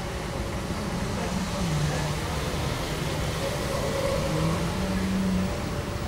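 Airport terminal ambience: a steady wash of hall noise. From about a second in until near the end, a low hum steps up and down in pitch.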